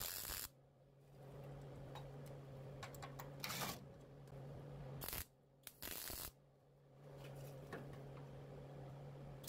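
MIG welder laying short tack welds on sheet steel: four brief bursts of arc crackle, each under half a second, with a steady low hum between them.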